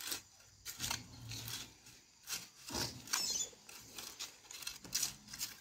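Firewood being handled and arranged: scattered, irregular knocks and scrapes of wood.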